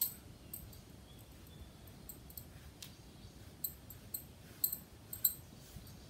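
Faint, scattered light clicks and ticks from hands at work marking out a blouse piece in chalk on cloth.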